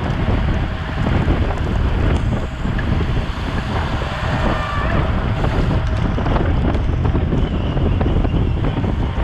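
Wind rushing over a bicycle-mounted action camera's microphone while racing at speed, a steady low rumble.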